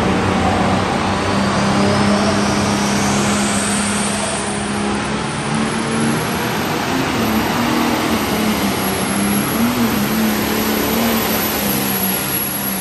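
Light pro stock pulling tractor's turbocharged diesel engine running hard at full throttle during a pull: a loud, steady drone. A high whistle climbs in pitch over the first four seconds.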